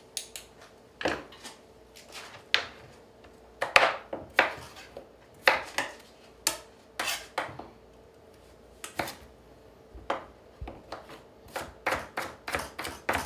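Chef's knife chopping a carrot on a plastic cutting board: sharp knocks of the blade hitting the board, about a second apart at first and coming faster near the end.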